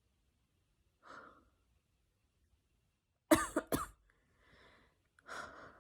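Someone coughing twice in quick succession about three seconds in, with soft breathy exhales before and after. The cough comes with fever after a second Moderna COVID-19 vaccine dose.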